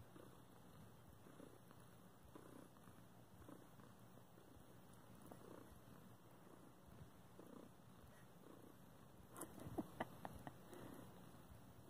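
Domestic cat purring softly, the purr swelling and fading about once a second with its breaths. A few sharp clicks come close together about ten seconds in.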